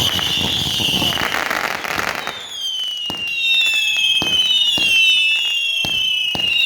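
Consumer fireworks going off. For about two seconds there is a crackling hiss under a steady high whistle. Then several whistles overlap, each sliding slowly down in pitch, over a string of sharp bangs.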